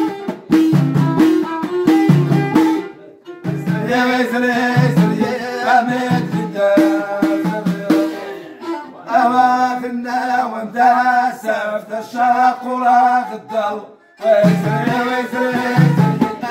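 Folk ensemble playing: hand frame drums beat a steady rhythm under a violin played upright and a man's singing voice. The music breaks off briefly about three seconds in and again near fourteen seconds, then picks up again.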